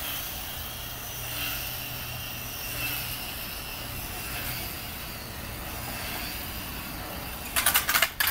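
Tiny electric motor and propeller of a tethered model P-51 Mustang whining steadily at reduced throttle as it circles on its line, the pitch drifting slightly. Near the end, a brief rattling clatter as the plane comes down to land.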